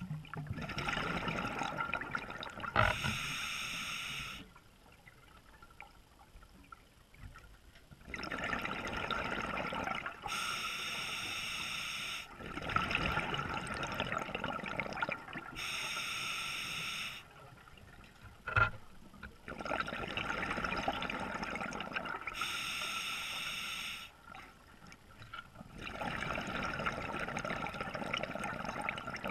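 Scuba diver breathing underwater through an open-circuit regulator: exhaled bubbles and the hiss of each inhalation come in blocks of a few seconds, with quieter pauses between breaths. Two sharp knocks of gear, one about three seconds in and one about two-thirds through.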